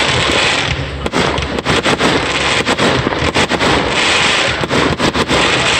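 Consumer fireworks going off in a continuous loud barrage of bangs and crackle.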